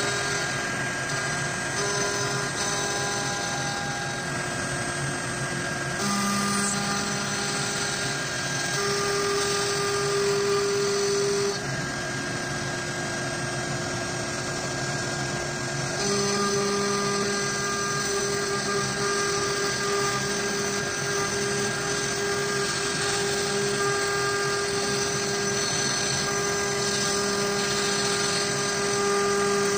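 Avid CNC router's spindle running with a steady whine while its straight bit cuts an inlay pocket in end-grain wood. The pitch and level shift abruptly a few times.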